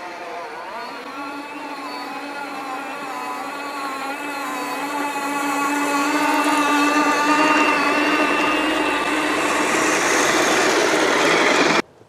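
Electric radio-controlled tracked snowcat's motor and track drive whining steadily, growing louder as it approaches, then cutting off abruptly near the end.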